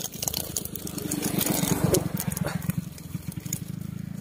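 A small engine running with a fast low pulse, growing louder to a peak about two seconds in and then easing off, with scattered light ticks and rustling over it.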